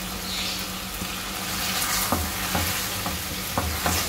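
Potato and egg curry sizzling in an aluminium pot on a gas burner as a spatula stirs it. Several knocks of the spatula against the pot come from about two seconds in.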